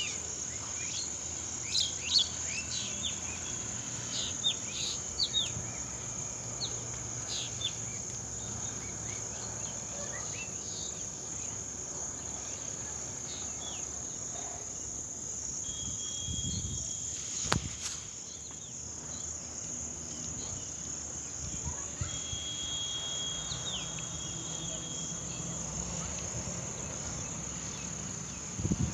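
Steady, high-pitched insect chorus, with many short bird chirps over the first several seconds. There is a single sharp click a little past halfway.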